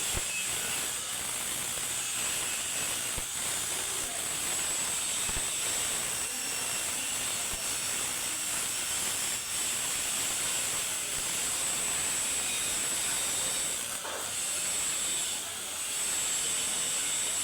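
Stick (shielded metal arc) welding: the electrode's arc gives a steady hiss with scattered small crackles. The level dips briefly twice near the end.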